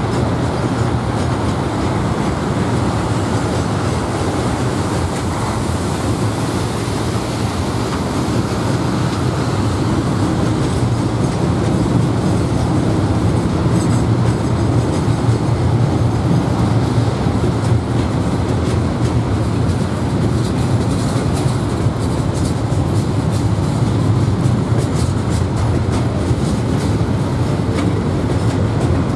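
A freight train's loaded log wagons rolling past on the rails with a steady rumble. Wheel clicks come through more often in the second half.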